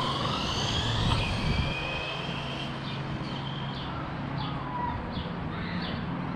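Electric RC drag car's brushless motor whining at full throttle as it speeds away, the whine sagging slightly in pitch and fading out within about three seconds. After that, a short high chirp repeats about every two-thirds of a second.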